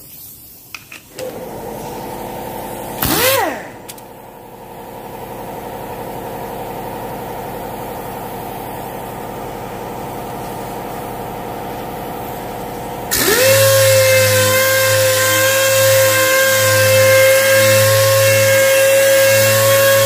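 Pneumatic (air-driven) orbital sander with a soft interface pad dry-sanding a car's clear coat. It runs with a steady whine and blips briefly about three seconds in. About thirteen seconds in it opens up to full speed: a loud rush of exhaust air, and a whine that rises and then holds steady.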